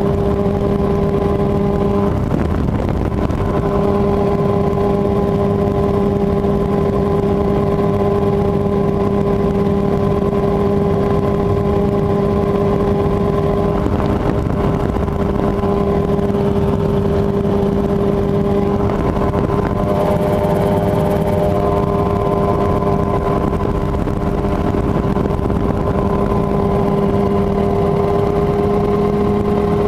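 Mosquito XE light helicopter in cruise flight: its engine and rotor run with a steady, loud drone, a constant low hum with overtones that wavers briefly about two seconds in.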